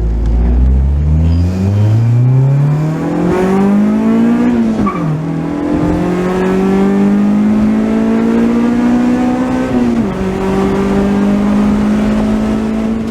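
Acura Integra four-cylinder with an aftermarket header and exhaust, accelerating hard. The engine note climbs steeply, drops sharply at an upshift about five seconds in, climbs again more slowly, dips briefly near ten seconds in, then holds steady at high revs.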